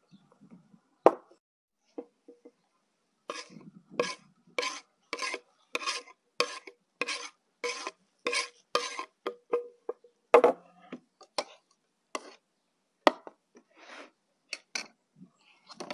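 Rhythmic scraping or cutting strokes of kitchen food preparation, about two a second for several seconds, followed by a few scattered sharper knocks.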